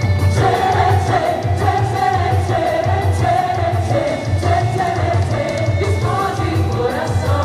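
Quadrilha junina dance music: a steady pulsing bass beat with voices singing a melody that comes in about half a second in.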